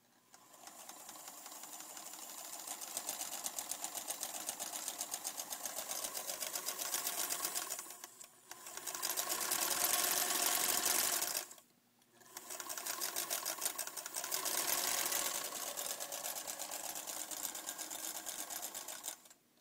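Vintage Singer electric sewing machine running in a fast, even rhythm, picking up speed over the first few seconds. It stops briefly twice, about eight and about twelve seconds in, and runs again before stopping near the end.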